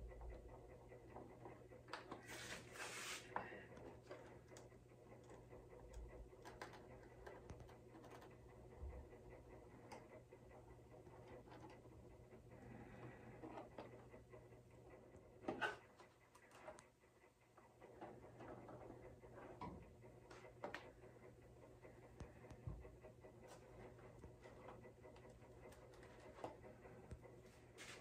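Faint handling sounds of hands and a small wooden cleat working against the inside of a vintage archtop guitar body: light scrapes, rubs and small taps. There is a louder scrape about two seconds in and a sharp knock about halfway through.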